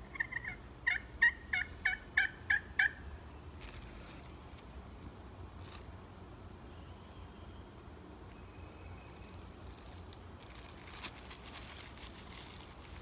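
Turkey slate (pot) call scratched with a striker, running a series of about nine short yelps, roughly three a second, that stop about three seconds in. After that come soft, scattered crinkles of a plastic Ziploc bag as the slate is handled.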